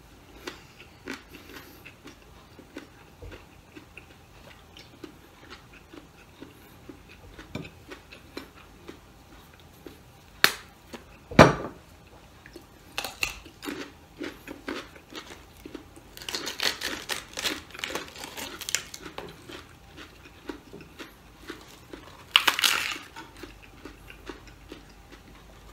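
Eating at the table: chewing and crunching raw vegetables with small scattered clicks, two sharp knocks about halfway through, the second the loudest, and a spell of crisp crackling. Near the end comes a short crisp tearing as lettuce leaves are pulled off an iceberg lettuce head.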